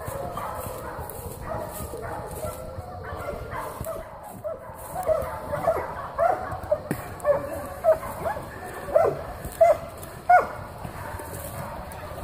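Hog-hunting bay dogs barking, faint at first, then sharp, short barks in quick succession from about five seconds in.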